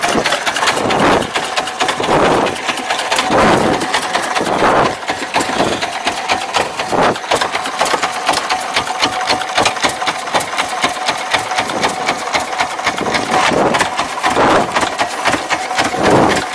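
A small fishing boat's engine idling with a rapid, steady knock, with a few louder rushes of noise over it.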